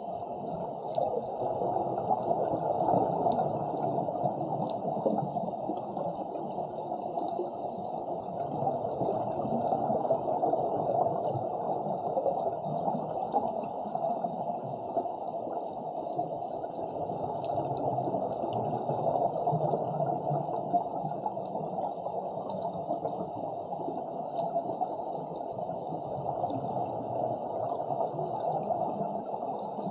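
Continuous underwater rush and gurgle of water with scuba divers' exhaust bubbles, muffled, with the sound swelling and easing every few seconds.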